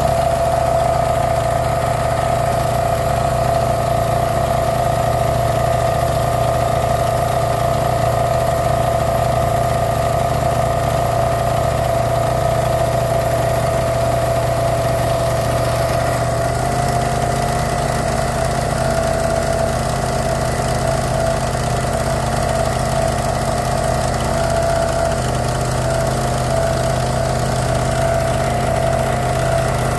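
Motorboat engine running steadily at a constant pitch, its tone shifting slightly about halfway through.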